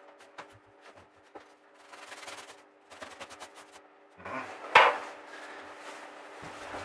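Slabs of upholstery foam being handled and pushed into place on a settee base: small taps and rubbing, then a loud rustle and knock about two-thirds of the way through, followed by steady scuffing.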